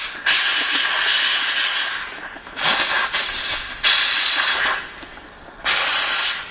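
Steam cleaner jet hissing in four bursts with short gaps, blasting grit and rust out of a sewing machine's workings.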